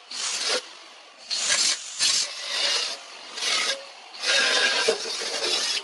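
Aerosol spray paint can hissing in six on-off bursts, the last about a second and a half long, as black paint goes onto a steel air-compressor tank grill.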